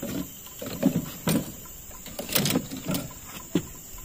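Fishing gear and a landing net being handled in a small boat: irregular knocks and clatters, with several sharp bumps.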